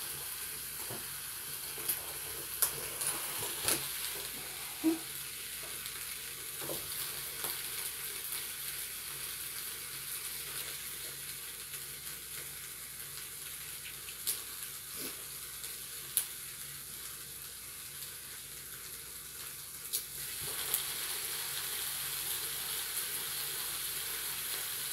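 Bacon-wrapped chicken sizzling inside a closed flip-style waffle iron: a steady hiss of frying grease with scattered sharp pops and crackles, a little louder for the last few seconds.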